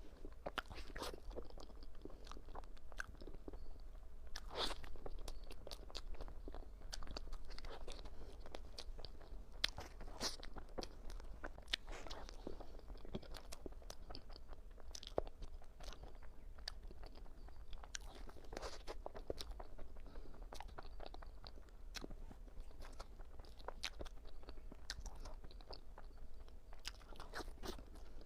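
Close-miked eating sounds of a person biting and chewing a roll crepe cake, with many irregular small clicks and smacks, over a low steady hum.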